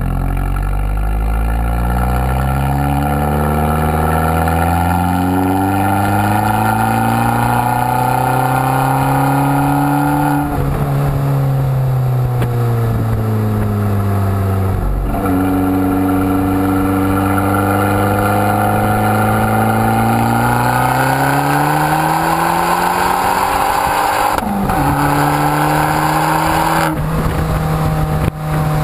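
Abarth 695 Biposto's turbocharged 1.4-litre four-cylinder engine through its Akrapovič exhaust, heard at the tailpipe. It climbs in pitch as the car accelerates and drops sharply at several gear changes.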